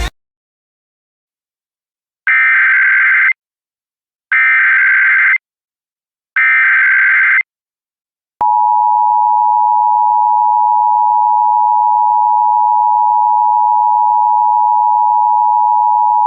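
Emergency Alert System SAME header: three one-second bursts of buzzing digital data tones, about a second apart. The EAS two-tone attention signal follows, a steady dual tone that comes in sharply and holds for about eight seconds.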